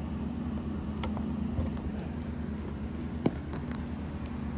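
A steady low mechanical hum, with a few light ticks and one sharp click a little past three seconds in.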